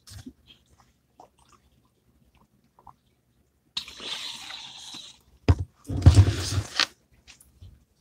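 A person drinking from a plastic bottle: a hissing sip about four seconds in, then a sharp knock and a louder, longer burst of noise about six seconds in. Faint mouth clicks come before.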